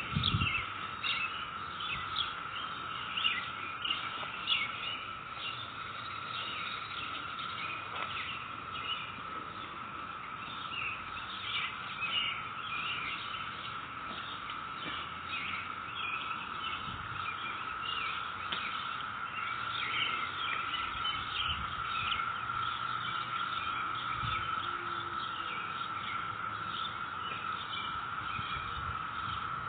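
Cicada chorus: a steady, unbroken drone from many insects calling together, with many short high chirps scattered over it.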